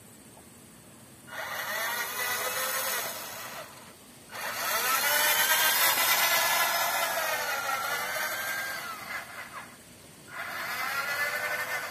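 Electric drive motor and gearbox of a 1:10 scale radio-controlled GAZ-67B model whining in three runs, the pitch rising and falling as the model speeds up and slows down, with a hiss of its tyres on gravel. The middle run is the longest and loudest.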